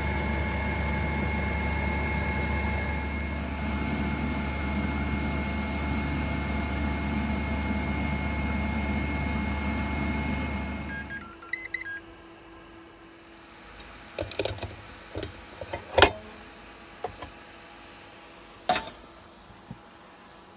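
Tefal Actifry 2-in-1 air fryer running with a steady fan hum and whine, which cuts off suddenly about eleven seconds in and is followed by a few short high beeps. Then come scattered clicks and knocks of the fryer's lid and parts being handled.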